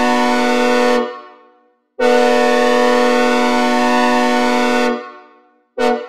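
Synthesized recreation of a Nathan K5HL locomotive air horn sounding the grade-crossing pattern. The first long blast ends about a second in, a second long blast runs about three seconds, and a short toot comes near the end. Each blast is a steady multi-note chord and trails off in reverb.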